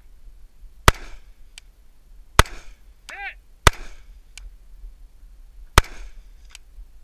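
Four rifle shots fired one at a time, about one and a half to two seconds apart, each with a short echo tail. A fainter sharp tick comes just under a second after three of the shots.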